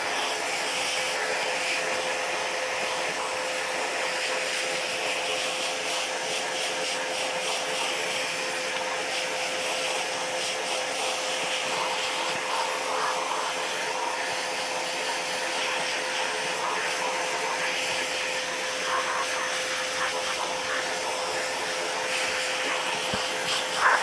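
2B 18-litre wet and dry shop vacuum running steadily, its hose nozzle sucking dust out of an angle grinder, with one steady tone over the rush of air.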